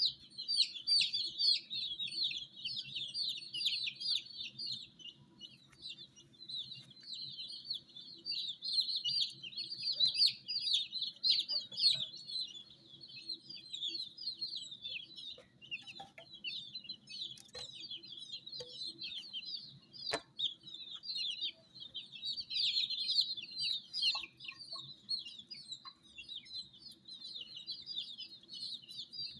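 A crowd of baby chicks peeping without pause, many short high calls overlapping into a dense chorus. A faint steady hum runs underneath, with an occasional click.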